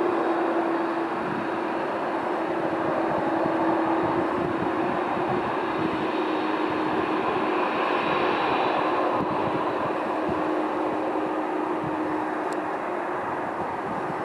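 Boeing 747-400 freighter's four turbofan engines running at low taxi thrust: a steady jet roar with a held whine that sinks slightly in pitch as the aircraft turns away.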